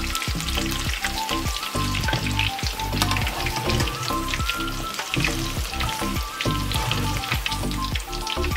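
Batter-coated green chillies deep-frying in hot oil: a steady sizzle with fine crackling as a mesh skimmer turns and lifts them. Music with a regular beat plays underneath.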